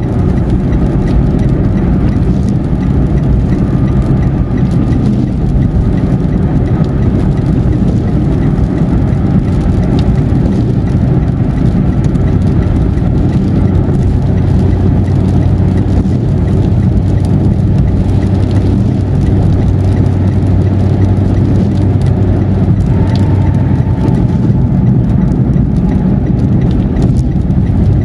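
Steady road and engine noise of a car cruising on a highway, heard from inside the cabin: a continuous low drone of tyres and engine with a faint whine above it.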